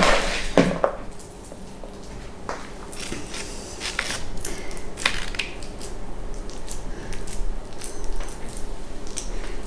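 Hands scooping a soft vegan sausage-and-mushroom filling from a plastic mixing bowl in the first second, then pressing and moulding it onto puff pastry, with soft squishing and scattered light taps and rustles.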